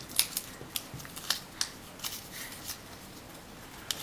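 Origami paper being handled and folded as its flaps are lifted: short, crisp paper crackles and rustles at irregular intervals.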